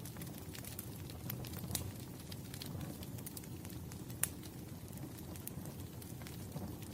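Wood fire crackling: a steady low rumble of burning logs with scattered sharp pops and snaps, the loudest about four seconds in.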